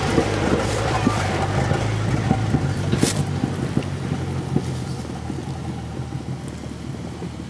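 Off-road 4x4 truck engine running at low speed, slowly fading as the vehicle moves off, with a few small knocks and one sharp click about three seconds in.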